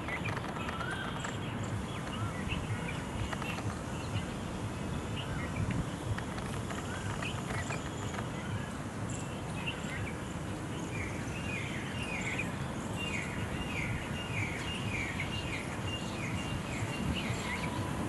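Outdoor ambience of small birds calling over a steady low background hum. A few wavy whistled notes come in the first half, then through the second half a bird repeats a short falling note about twice a second.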